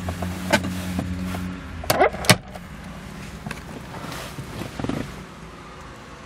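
Plastic glove box lid of a 2002 Audi A6 being handled and shut: a few light clicks, then a sharp latch snap about two seconds in. A low steady hum stops just before the snap, and a couple of faint handling knocks follow.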